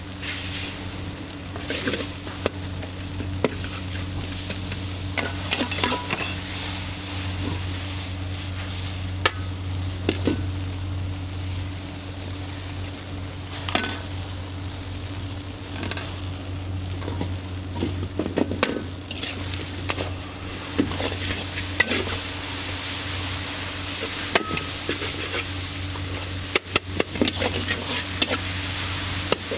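Char kway teow sizzling in a hot wok while it is stir-fried, with the metal spatula knocking and scraping against the wok, most often near the end. A steady low hum runs underneath.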